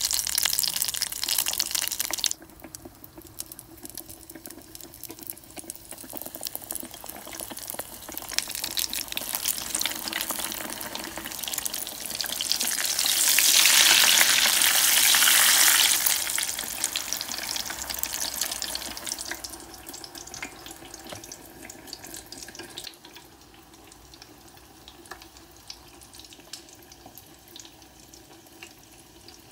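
Battered eggplant slices deep-frying in hot oil: a sizzling hiss with crackle that drops off suddenly about two seconds in, swells to its loudest around the middle, then dies down to a faint crackle.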